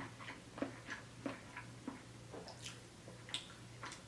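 Close-up eating sounds: chewing, lip smacks and small wet clicks coming irregularly, over a faint steady low hum.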